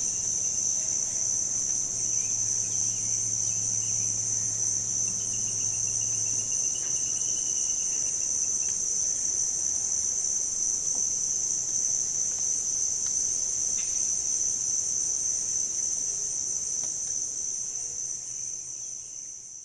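Continuous high-pitched insect trill, like a cricket chorus, fading out near the end.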